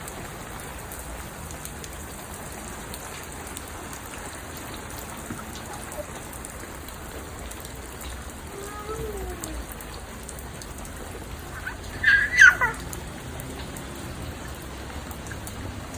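Steady rain falling, with one short high-pitched squeal about twelve seconds in.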